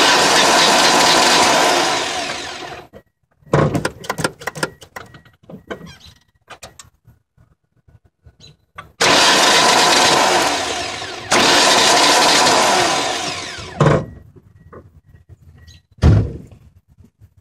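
1999 Ford ZX2's starter motor whirring as the engine is cranked three times, each for about two to three seconds, the last two back to back; the engine never catches. This is the no-start the owner is chasing: it cranks with a new battery but won't fire, the fuel shutoff not tripped. Short clunks follow the cranking.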